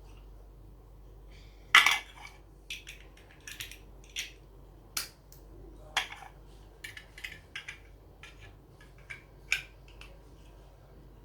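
Plastic Lego pieces clicking and clattering as they are handled and fitted together: an irregular string of short, sharp clicks, the loudest about two seconds in.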